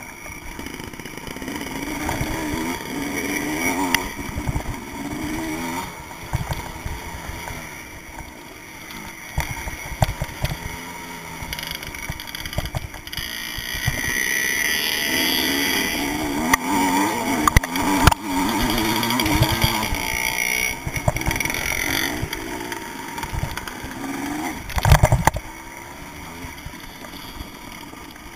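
Vintage motocross bike's engine heard from its handlebar-mounted camera, the revs rising and falling as it is ridden over a rough dirt track. Knocks from the bumps run throughout, with a loud thump near the end.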